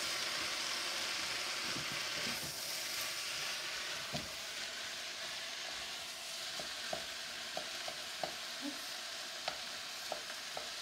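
Rice and vegetables sizzling steadily in a wok while being stirred, with scattered light clicks of the utensil against the pan from about four seconds in.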